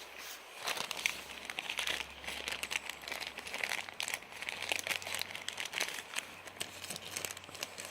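Plastic bag crinkling and rustling as it is handled and rummaged through, with irregular small crackles and clicks.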